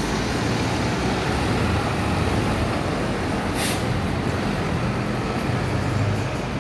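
Diesel engine of a city midibus running as it drives past and pulls away, with a short burst of air hiss about three and a half seconds in.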